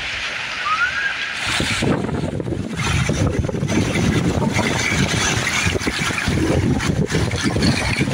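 Rushing water of a river rapid, then from about a second and a half in the louder, churning rush of a whitewater wave close by, with wind buffeting the microphone.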